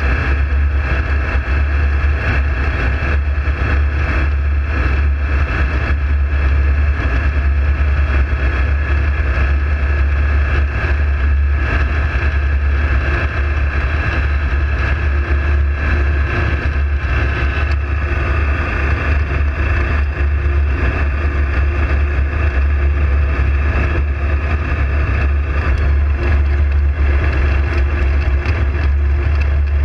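Ultralight aircraft's engine and propeller running steadily in flight: one even, unbroken drone.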